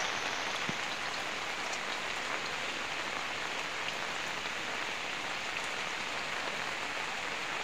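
Steady rain falling, an even hiss with a few faint drop ticks.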